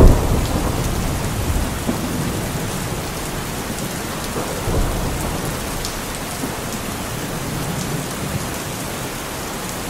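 Steady rain falling, with a low rumble of thunder at the very start and a weaker one nearly five seconds in.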